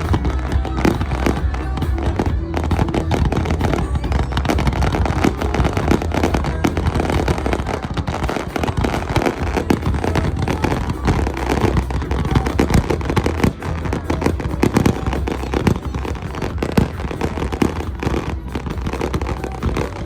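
Fireworks display going off continuously: a dense run of pops and bangs, over a steady low rumble.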